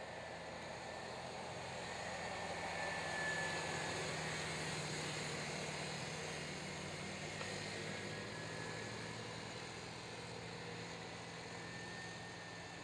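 Small engines of two youth quad ATVs running as they race on a dirt track: a steady drone that grows louder to a peak about three seconds in, then slowly fades.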